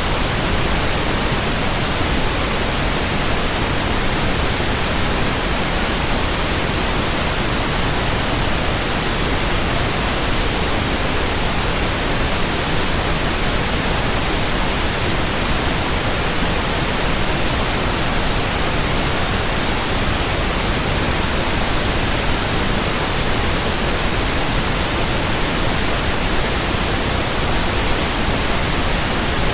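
Steady white noise: an even hiss spread across all pitches, unchanging, with no beat or pulse in it.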